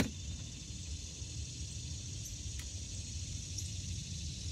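Steady outdoor ambience in a small fishing boat on a lake: a low rumble under a faint high hiss. It opens with one sharp, loud click, and a couple of faint ticks come about two and a half and three and a half seconds in.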